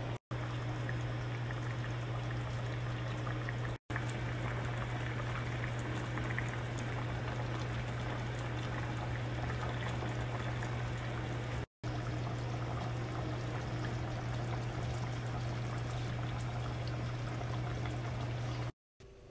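Marqouq stew simmering in a non-stick pot, a steady bubbling hiss over a constant low hum, cutting out to silence four times for a split second.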